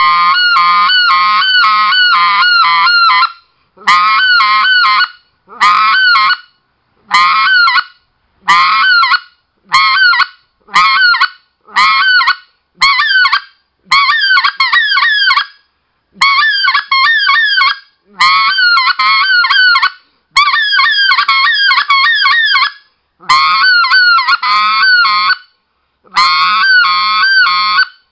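RedBone specklebelly goose call blown loudly in about fifteen runs of one to three seconds each, every run a fast string of notes that break up and down in pitch, with short gaps between runs. The caller is switching his voice (the scratch or murmur) on and off into clear air while keeping the air going, an exercise for running the call.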